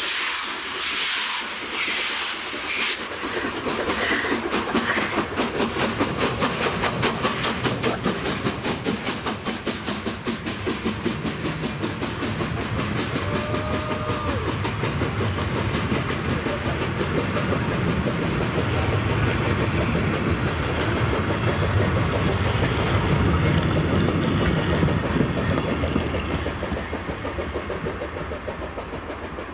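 Steam-hauled passenger train pulling out: the exhaust beats of steam locomotive 464.202 with hissing steam, then a rake of vintage passenger coaches rolling by with a steady rhythmic clatter of wheels on the rails and a low rumble, fading near the end as the train moves away.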